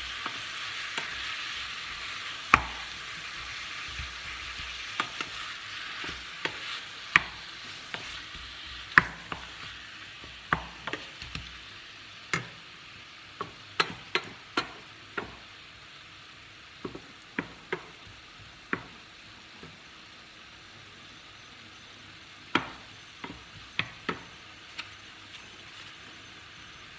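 Ground meat sizzling in a stainless steel pan while a wooden spoon stirs it, with irregular sharp knocks of the spoon against the pan. The sizzle is strongest at first and fades gradually through the middle of the stretch.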